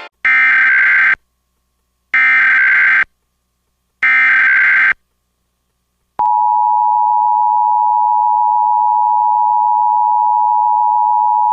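Emergency Alert System SAME header: three bursts of warbling digital data tones, each just under a second long and about a second apart, encoding a severe thunderstorm warning. About six seconds in, the EAS attention signal starts, a loud steady two-tone alarm (853 and 960 Hz) that carries on.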